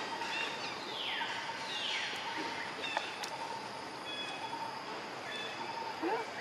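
Outdoor ambience: a steady background hiss with birds calling, two long falling whistles in the first two seconds, then a few short high chirps.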